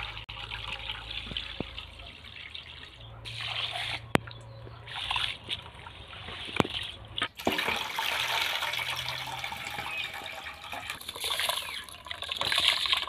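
Water pouring, trickling and sloshing as rice is washed by hand in a metal bowl: cloudy rinse water is poured off, the rice is rubbed in the water, and then the rice is tipped into a pot of water. A few sharp clicks come about four seconds and six and a half seconds in.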